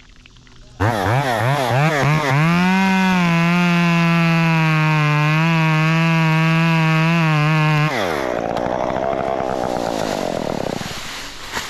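Top-handle chainsaw revved in a few quick bursts about a second in, then held at full throttle for about five seconds while cutting into a tree trunk, its pitch sagging slightly under load. About eight seconds in the throttle is let off and the sound drops and fades away over the next few seconds.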